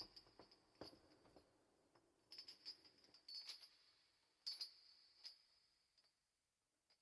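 Faint, irregular jingling: a few short metallic shakes, like small bells, a second or so apart.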